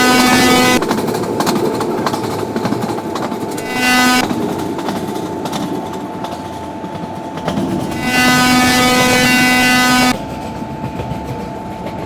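Indian Railways train running fast, wheels rattling and clicking over the rail joints, while the locomotive horn sounds three times: a long blast ending just under a second in, a short toot about four seconds in, and a two-second blast near the end.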